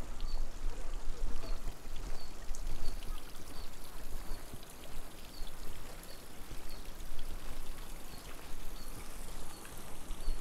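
Steady rush of flowing water with small ticks and patters, and a faint high chirp repeating about twice a second.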